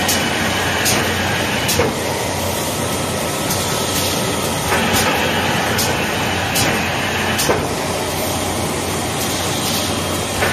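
Automatic woven-bag cutting, sewing and hemming line running: a steady machine noise with a sharp click about every 0.8 s. Over it, a higher-pitched run comes on for about three seconds and stops, twice, as the line cycles.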